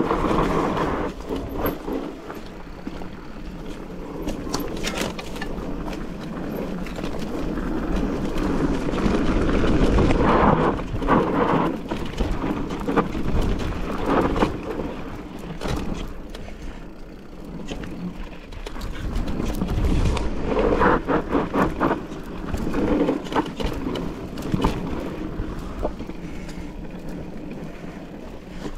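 Mountain bike riding over a rough trail: tyres rolling over stones and the bike rattling, with frequent small knocks and louder rough stretches.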